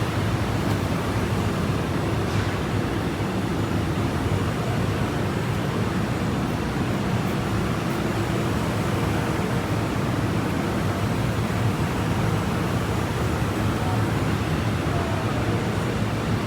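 Steady mechanical hum and noise of running machinery, even throughout with no distinct knocks or changes.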